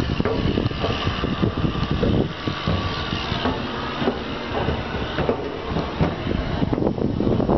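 Footsteps clanging on the chequer-plate metal stairs of a steel lookout tower, with irregular knocks several times a second over a steady low rumble.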